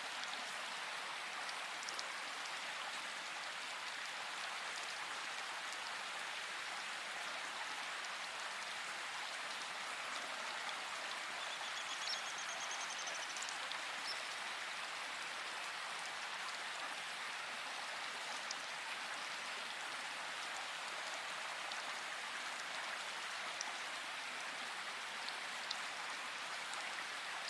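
Steady rain falling in a forest: an even hiss with scattered individual drops ticking.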